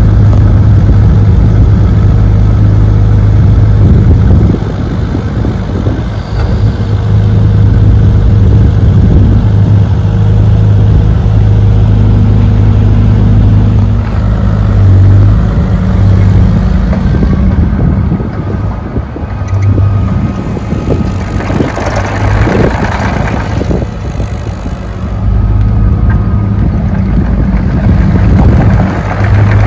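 Diesel engine of a JCB 8055 ZTS rubber-track mini excavator running as the machine is worked, its note rising and falling with the load. A noisier stretch comes about three-quarters of the way through.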